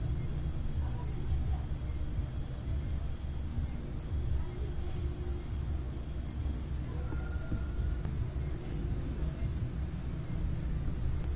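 Steady low background hum with a high, thin chirp repeating evenly about four times a second.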